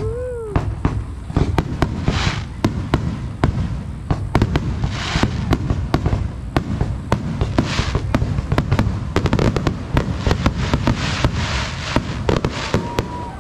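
Aerial fireworks shells bursting in a continuous barrage: sharp bangs come in quick succession, several a second at times, with spells of crackling from the bursts.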